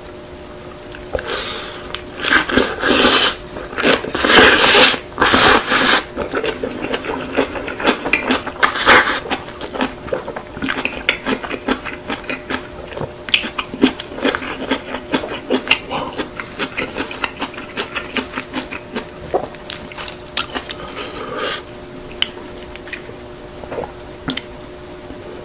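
Close-miked eating of kimchi-wrapped spicy chicken noodles: a few loud bites in the first seconds and another about nine seconds in, then a long stretch of rapid wet chewing that dies down about 21 seconds in.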